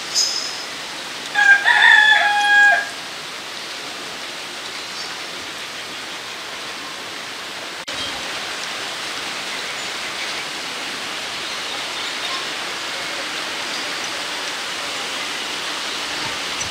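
A cock crows once, about a second in: a call of about a second and a half in several stepped parts. A short high chirp comes at the very start, and a steady rushing outdoor noise runs underneath.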